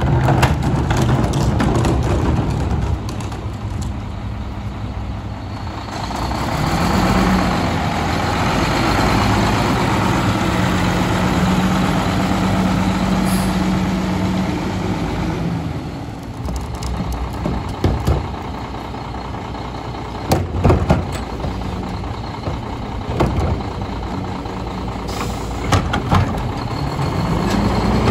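Diesel engine of a Volvo WXLL rear-loader garbage truck with a Heil 5000 body revving up, holding high revs for about eight seconds, then dropping back to idle. Several sharp clanks follow, and the engine revs up again near the end.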